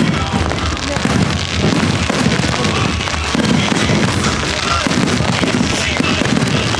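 Fireworks going off in rapid, overlapping bursts, with music playing under them.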